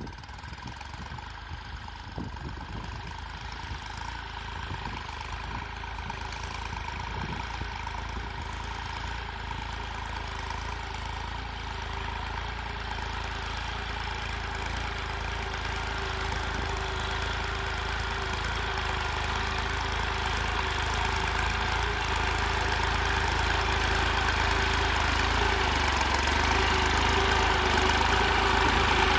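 Massey Ferguson tractor's diesel engine running steadily while pulling a plough, growing steadily louder.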